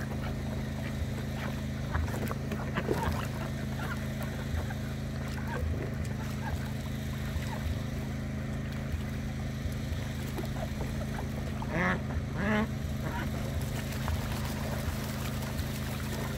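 Domestic ducks splashing and dabbling in a plastic wading pool, with two short quacks about twelve seconds in, over the steady drone of a small engine.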